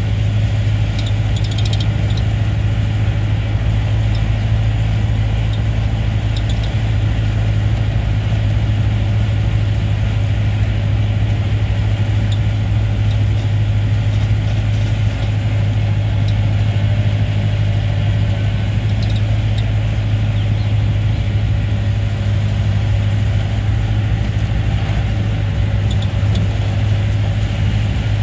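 Safari jeep's engine running steadily while driving, heard from inside the cabin as a constant low drone, with a few faint clicks or rattles.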